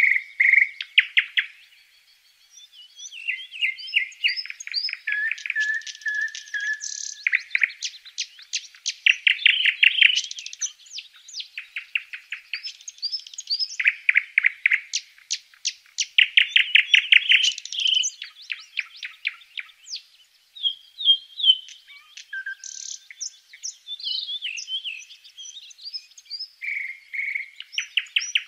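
Blue tits chirping: rapid trilled runs of short, high notes, broken by brief pauses.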